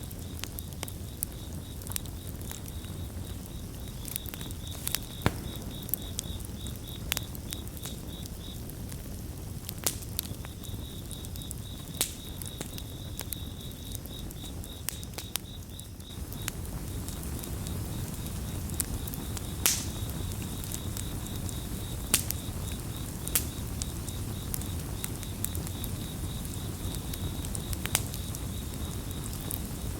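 Campfire crackling, with sharp irregular pops over a low steady rush of burning wood. Crickets chirp in a high pulsing trill that breaks off briefly about a third of the way in.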